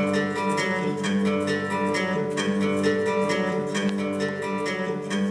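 Instrumental music of plucked strings, picking notes in a steady pulse over sustained lower tones.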